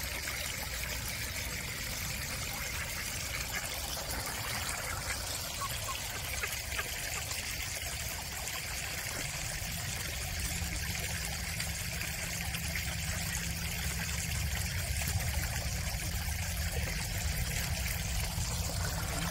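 Shallow stream water trickling and flowing steadily over rocks.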